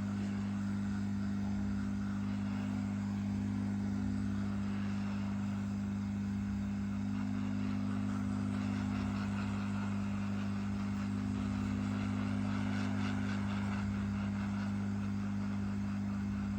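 Hot air gun blowing steadily: a constant low hum under an even airy hiss, heating a smartphone's plastic back cover to soften the adhesive.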